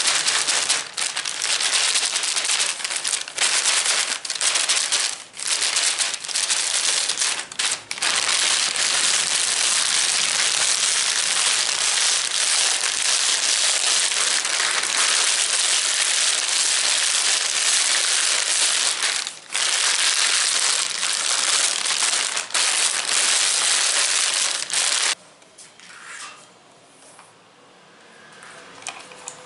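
Dense, continuous crinkling and crackling right at the microphone, broken by a few short pauses, stopping abruptly near the end, after which only faint sounds remain.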